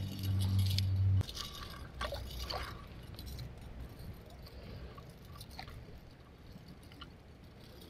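A low steady hum that cuts off suddenly about a second in, then scattered light clicks, rustles and small water sounds as a rope fish stringer is handled at the water's edge.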